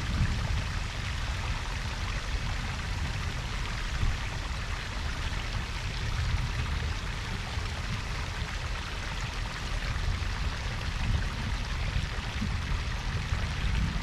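Garden koi-pond waterfall and brook: water rushing and splashing steadily, with a deep low rumble underneath.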